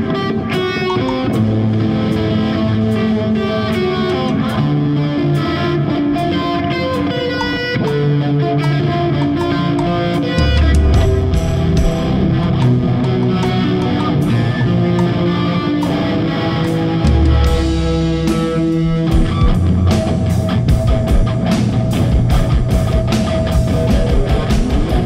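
Instrumental rock jam: electric guitar played through a Marshall half stack over a Pearl drum kit, with no vocals. About three-quarters of the way in, it moves into a heavier section with fast, steady drumming.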